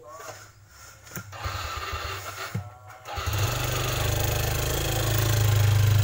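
Light clicks and rustles of wires being handled. About three seconds in, a motor or engine starts up and keeps running with a steady low drone, which becomes the loudest sound.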